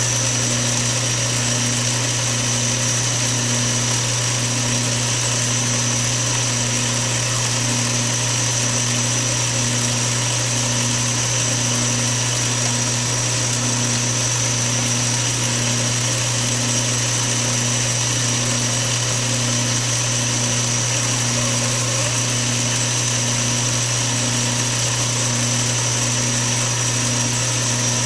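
Small metal lathe, an Atlas 618, running steadily while a fine drill about 1 mm across is fed into a spinning brass oil cup. The motor and drive give a steady hum with a high whine over it and a soft beat about once a second.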